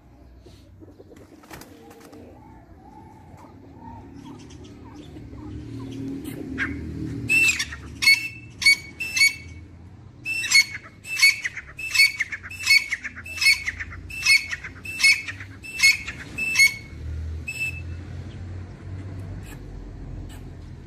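Grey francolin (teetar) calling: a loud series of about fourteen repeated call notes, starting about a third of the way in. After the first four there is a short break, then the notes come at a steady beat of about one and a half a second before stopping.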